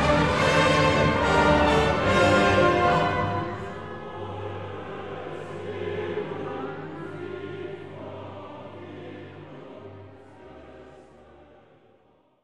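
Background music, orchestral with choir-like voices. Loud at first, it turns softer after about three seconds, with held low notes, and fades out near the end.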